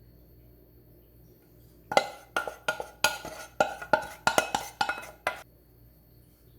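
Kitchenware clinking and knocking: about a dozen quick ringing clinks over about three and a half seconds, starting about two seconds in.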